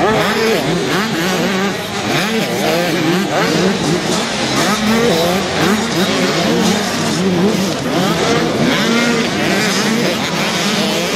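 Several motocross bikes racing at once. Their engines overlap and keep revving up and down in pitch as the riders throttle through the turns and over the jumps.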